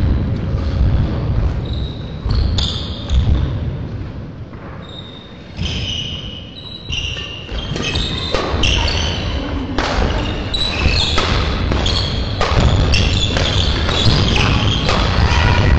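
Badminton rally on an indoor court, echoing in a large hall: rackets striking the shuttlecock, shoes squeaking on the court floor and footsteps thudding. The play picks up about halfway through, after a quieter pause between points.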